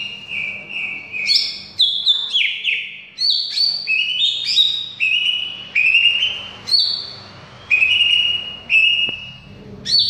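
Cucak ijo (green leafbird) singing: a varied run of clear whistled notes, many sliding down in pitch, delivered in quick phrases with short pauses between them.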